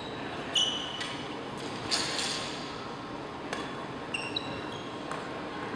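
Badminton rally: rackets strike the shuttlecock with several sharp hits about a second apart, and sneakers give short high squeaks on the court floor about half a second in and again about four seconds in. The sounds echo in a large sports hall.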